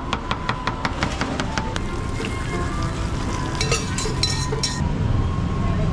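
Metal spatula clacking quickly on a roti griddle, about six strikes a second for the first couple of seconds, over the sound of frying. About three and a half seconds in comes a run of high, ringing metallic clinks.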